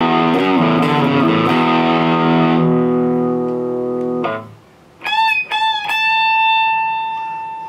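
Gibson SG electric guitar playing full chords, then cutting off sharply about four seconds in. After a short gap come single high notes that slide up into pitch, the last one held and slowly fading.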